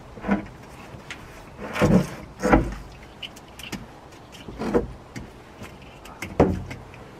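Heavy lead-acid car battery being slid across its tray and handled in the boot well, with several dull thumps and scrapes against the car body.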